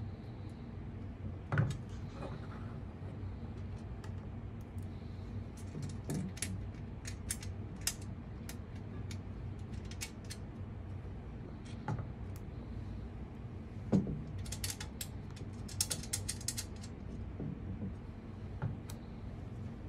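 Small clicks and clinks of hardware being handled on a metal access-point mount as nuts are fitted by hand onto its studs. There are two louder knocks, about one and a half seconds in and near fourteen seconds, and a quick run of ticks soon after the second. A steady low hum runs underneath.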